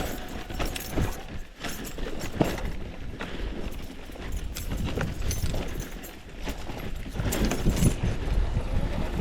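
Mountain bike clattering over rough trail on a descent: irregular knocks and rattles from the frame, chain and parts, over a low rumble of wind and tyres.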